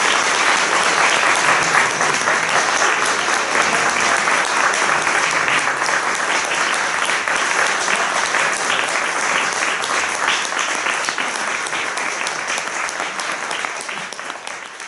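Audience applauding steadily, tapering off near the end.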